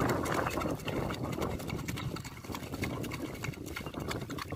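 A hooked catfish thrashing at the water's surface on a hand line: a rapid, irregular run of splashes and slaps.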